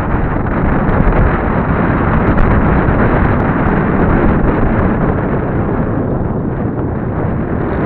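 Steady, loud wind rush buffeting the microphone of camera sunglasses worn by a cyclist descending at speed on a road bike.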